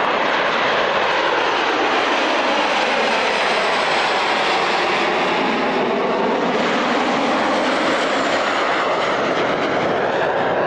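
Formation of Dassault/Dornier Alpha Jets taking off, their twin Larzac turbofans running at takeoff power: a loud, steady jet noise with faint slow shifts in pitch as the aircraft move past.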